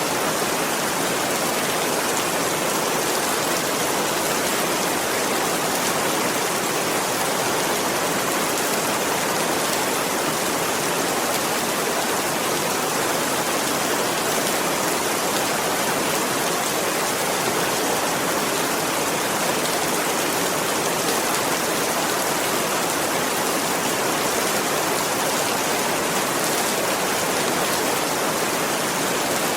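Rain falling steadily as an even, unbroken hiss.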